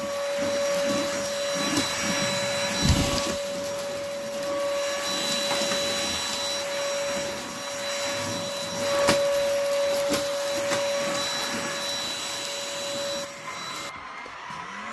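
Dibea D18 cordless stick vacuum cleaner running steadily: an even high motor whine over a rush of suction, with a few soft knocks. It cuts off about a second before the end.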